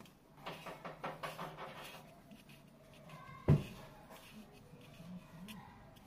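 Light handling noise of fingers tapping a smartphone screen on a desk: small scattered taps, then one sharp knock about three and a half seconds in, just after a faint short tone.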